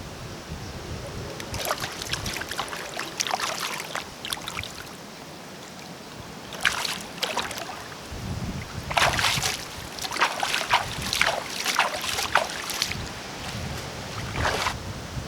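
Water splashing and sloshing in several irregular bursts over a steady background hiss.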